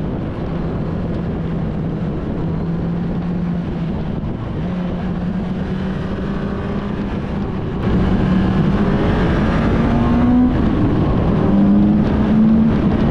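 Motorcycle engine running under way with road and wind noise, heard from the bike itself. About eight seconds in it gets louder and the pitch climbs twice, as the bike accelerates through the gears.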